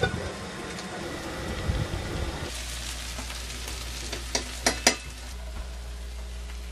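Food sizzling and crackling in a frying pan on a two-burner camp stove. About halfway through, a few sharp clicks of a metal turner against the pan and plate as the food is served.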